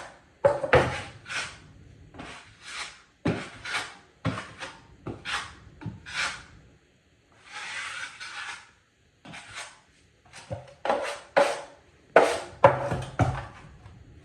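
Metal drywall knife scraping joint compound onto the wall and paper tape in a run of short strokes, with one longer, smoother pass about halfway through.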